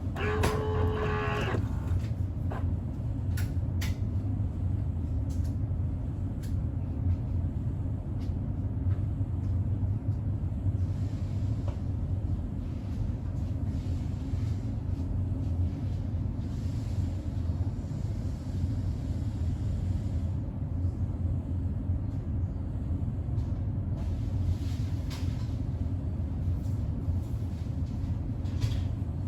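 A steady low rumble, like a running engine or machine, with a few faint clicks. About a second in there is a short steady tone with some hiss over it.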